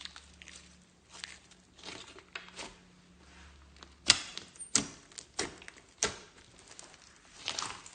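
Hands squishing and stretching slime, with irregular sticky crackles and pops that get louder and sharper from about four seconds in.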